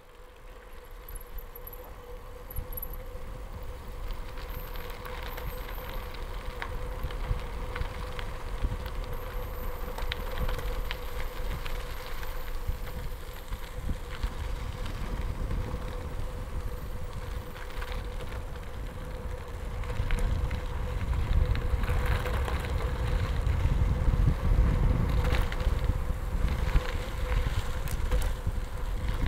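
Gravel bike tyres rolling over a dirt and gravel road, a steady low rumble with scattered small crunching ticks from the stones. It grows louder about two-thirds of the way through.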